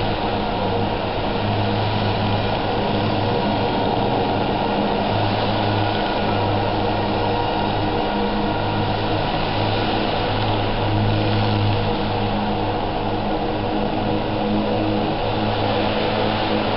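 Align T-Rex electric RC helicopter in flight: a steady buzzing hum of rotor and motor, its low pulse swelling and easing as it manoeuvres.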